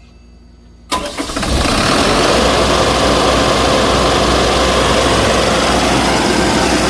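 Keypower generator set's engine catching about a second in, then picking up over half a second into steady, loud running.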